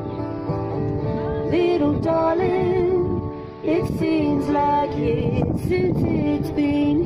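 Music: a woman singing a melody with held, wavering notes over instrumental accompaniment.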